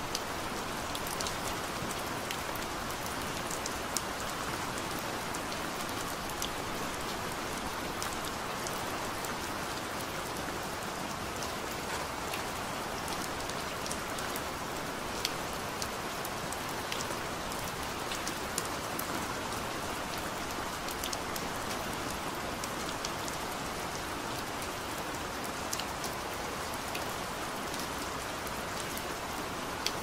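Steady gentle rain, an even hiss with scattered drops ticking through it.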